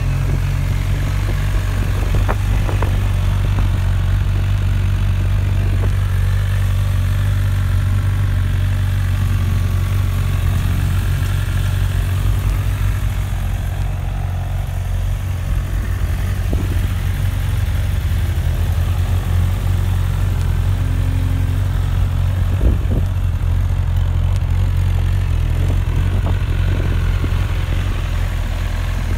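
2018 Honda CB1000R's 998 cc inline-four engine idling steadily, with no revving.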